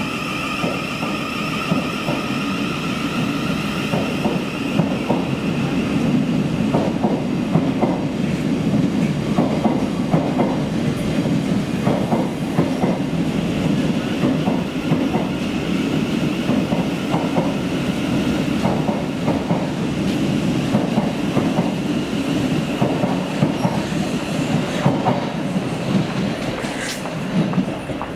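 Electric train running on the rails: a steady rumble with the wheels ticking over the rail joints. A high whine is strong at the start, fades within the first couple of seconds, and comes back fainter midway.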